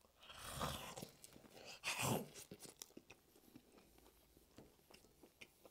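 Close-miked biting and chewing of a slice of frozen Hawaiian pizza. There are two louder crunches of the crust, the louder about two seconds in, followed by quieter chewing with small mouth clicks.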